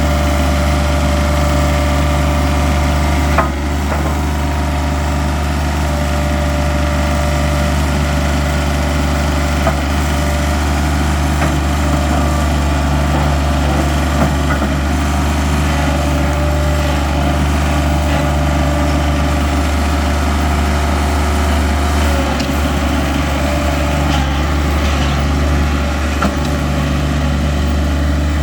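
Engine of a Toro walk-behind tracked loader running steadily at a constant speed, a low, even drone. A brief knock sounds about three and a half seconds in.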